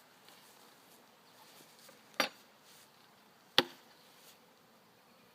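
Two sharp knocks about a second and a half apart as the wooden hive parts are handled, over a faint hum of bees.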